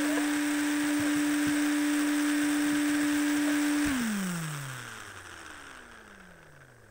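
A small electric motor on an FPV RC car whines at a steady pitch over a hiss, then about four seconds in winds down, its pitch falling as it fades away, as the car is switched off.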